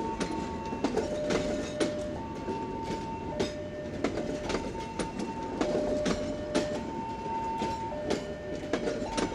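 Passenger train rolling out of a station, its wheels clicking unevenly over the rail joints. Meanwhile a two-tone warning signal keeps alternating a higher and a lower note, each held about a second.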